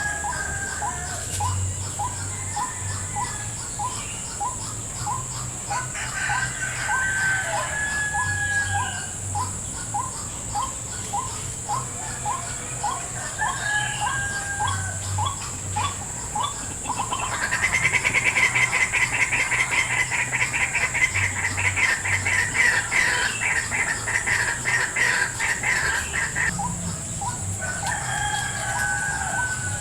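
White-breasted waterhen (ruak-ruak) calls: a run of short repeated notes, about two a second, then a louder, faster harsh chattering bout lasting about ten seconds from a little past halfway. A steady high-pitched whine runs underneath.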